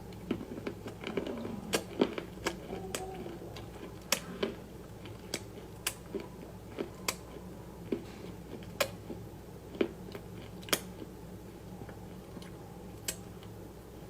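Crunchy food being bitten and chewed close to the microphone: a dense run of crackling crunches over the first few seconds, then single sharp crunches every second or so, thinning out near the end.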